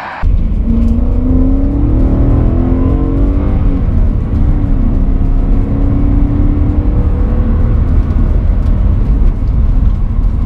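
BMW M3 E90's V8 engine running as the car drives, cutting in suddenly at the start. Its pitch rises over the first few seconds as the car accelerates, then holds steady over a deep rumble.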